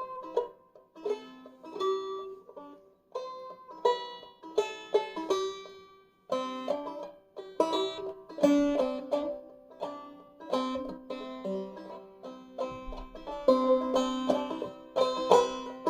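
Five-string banjo played clawhammer style in eCGCD tuning, with the fifth string dropped to E. It plays the B part of a fiddle tune high up the neck as a run of plucked notes in short phrases, with a brief break about six seconds in.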